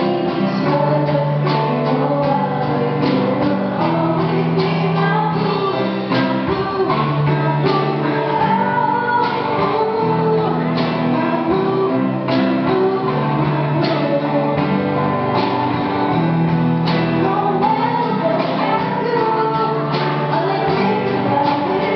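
Live rock band playing: drum kit keeping a steady beat under electric guitars and keyboard, with a woman singing lead.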